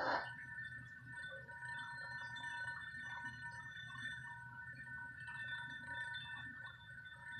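Crystal glasses ringing on their own: a steady high hum of two close tones with fainter overtones, and a brief noise at the very start.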